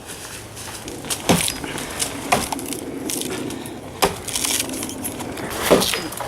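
Sticks and branches cracking and knocking while being handled, with a few separate sharp cracks spread out irregularly.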